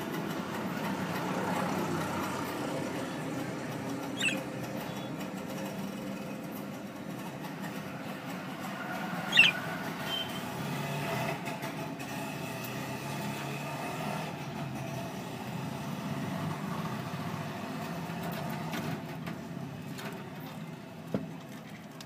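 Budgerigars chittering faintly over a steady low background hum. Two short, sharp chirps come about four and nine seconds in, the second the loudest sound, and there is a short knock near the end.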